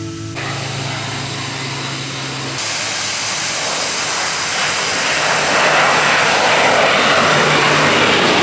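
Engine drone of a low-flying crop-spraying airplane growing steadily louder as it approaches and passes close overhead, loudest over the last few seconds and cutting off suddenly at the end.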